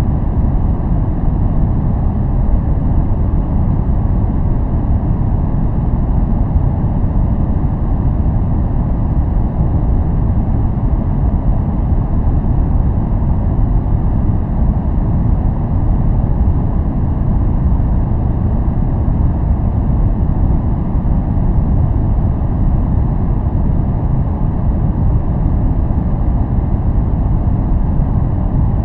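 Steady, unchanging noise played for relaxation and focus. It is deep, with most of its strength in the bass and little above the lower midrange, more like brown noise than flat white noise.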